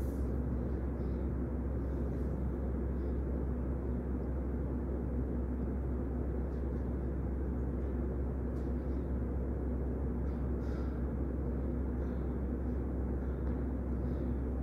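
Steady low rumble and hum of room noise in a large studio, with a few faint soft brushing sounds of a dancer moving on the floor.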